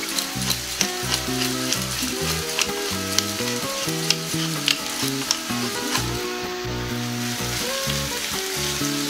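Diced carrots, onion and celery frying in oil in a pan: a steady sizzle with occasional sharp clicks. A wooden spatula stirs the vegetables near the end. Background music plays underneath.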